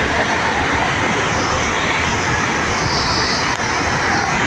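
Burning LP-gas tanker truck, its fire making a loud, steady rushing noise like a jet, with no explosion or bang.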